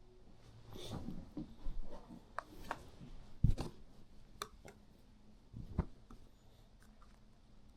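Handling noises: several sharp taps and knocks, the loudest about three and a half seconds in, with some rubbing or scraping near the start.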